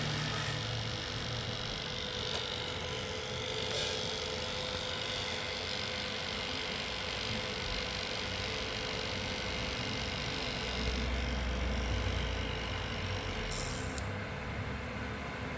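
Cooler fan running with a steady hum and a whine of fixed tones over a rushing noise: the unwanted noise the cooler is making.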